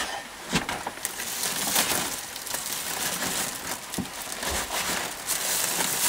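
Clear plastic sheeting and a woven polypropylene sack crinkling and rustling as hands pull back the wrapping that covers a wintering beehive, with small irregular crackles.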